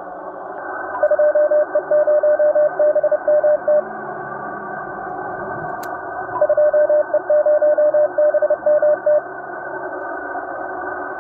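Morse code: a single steady tone keyed in dots and dashes over the continuous hiss of radio static, in two runs a few seconds apart.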